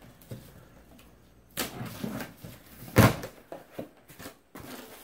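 Cardboard shipping box being opened by hand: flaps pulled apart with rustling and a few sharp knocks, the loudest about three seconds in.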